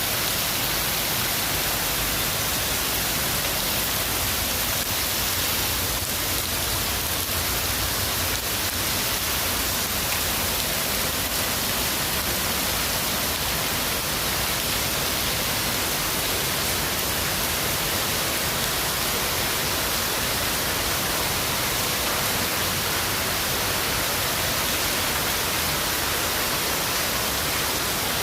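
Heavy downpour of rain, a steady even hiss that does not let up.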